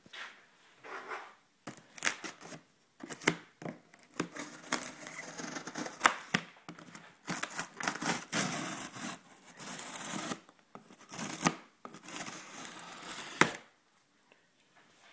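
Cardboard packaging of an amplifier box being handled and torn open: irregular tearing, rustling and scraping, with a few sharp knocks.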